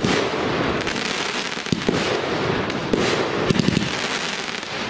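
Aerial fireworks bursting in quick succession: sharp bangs every second or so, with a quick cluster of pops past the middle, over a continuous crackle and hiss of burning stars.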